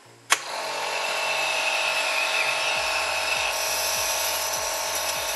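Pic Air Cube compressor nebuliser, with its tubing and nebuliser cup fitted, starts with a click about a third of a second in. Its compressor then runs steadily.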